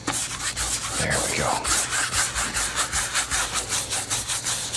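Two-inch paint brush scrubbed hard back and forth across a canvas wet with liquid white: bristles rasping on the canvas in quick, even strokes, several a second.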